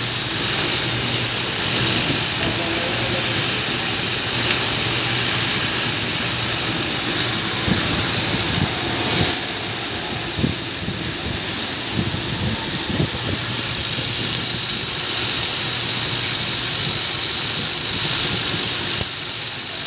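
Vibratory bowl feeder running: a steady buzzing hum with the metallic rattle and scattered clinks of steel pins shaking along the bowl's spiral track.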